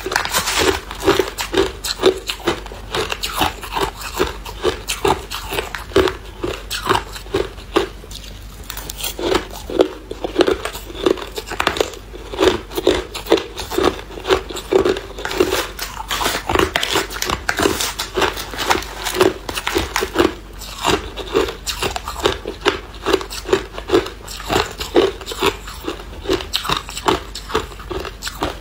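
Hard clear ice being bitten and chewed up close: a steady run of sharp crunching and cracking, several crunches a second, with a brief lull about eight seconds in.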